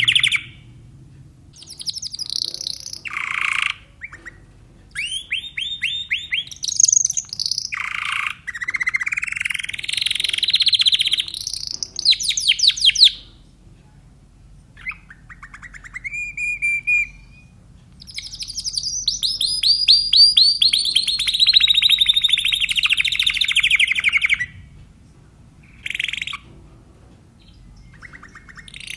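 Timbrado canary singing in phrases of rapid trills and gliding notes, separated by short pauses. Near the middle comes a long trilled phrase that slowly falls in pitch.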